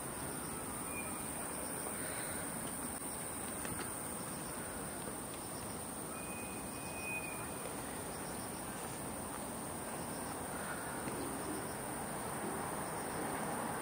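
Steady, high-pitched chorus of insects chirring in the garden.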